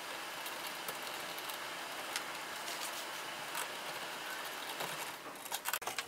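Faint steady hiss with scattered small clicks and rustles of hands working doorbell wires, a plastic wire connector and a small screwdriver in a doorbell chime box; a few quicker clicks come near the end.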